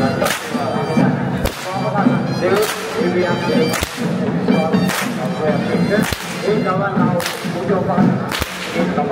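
Long ceremonial whips cracking, the sharp snap of the whip-crackers who lead a Sri Lankan perahera. The cracks come one after another, about one a second.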